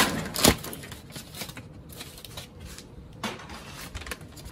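Clear plastic packaging bag crinkling and rustling as it is unwrapped from an electric charcoal starter, with two sharp crackles about half a second apart at the start, then softer irregular rustling.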